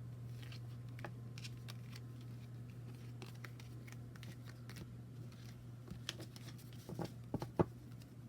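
Oracle cards being handled and flipped: soft paper rustles and light card taps, with a few sharper taps near the end, over a low steady hum.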